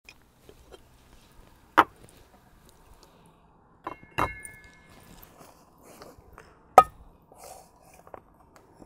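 Hard objects knocked and clinked together: scattered light clicks and a few louder knocks, the one near the middle leaving a short metallic ring.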